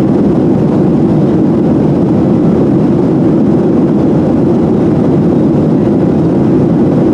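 Steady cabin noise inside a Boeing 737-700: the CFM56-7B jet engines and rushing airflow making an even, loud, low rumble that does not change.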